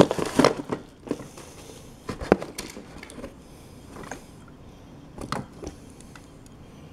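Plastic wrapping crinkling and rustling in short spells as a toy train engine is unwrapped by hand, with light clicks and knocks of the model being handled. There is one sharper click about two seconds in.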